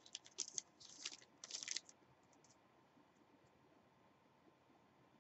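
Short crinkles and crackles of a foil trading-card pack wrapper being torn and pulled off a stack of cards during the first two seconds, then near silence.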